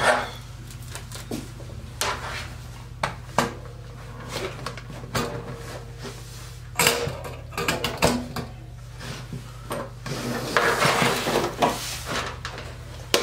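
Small parts, wires and tools handled on a wooden workbench: scattered clicks and knocks, with a denser stretch of rustling about ten seconds in, over a steady low hum.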